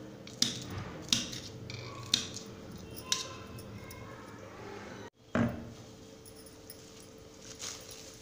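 A knife cutting green chillies into small pieces on a metal plate: sharp clicks of the blade striking the plate about once a second. About five seconds in, the sound drops out briefly, then comes one louder thud.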